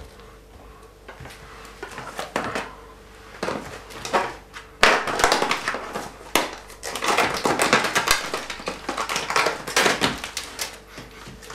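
Plastic meat packaging being cut open with a knife and peeled back, the plastic crackling and rustling in a dense run of rapid clicks from about five seconds in. Before that there are a few light knocks of things being moved on a table.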